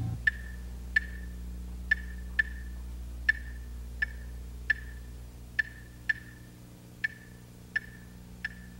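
Claves, alone, playing the Cuban son clave rhythm: sharp, dry wooden clicks in a repeating five-stroke pattern, with the music otherwise dropped out. A low steady hum runs underneath.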